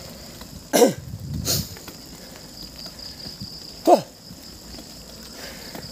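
A cyclist's hard breathing on a steep climb: two loud voiced breaths out, about three seconds apart, each dropping in pitch.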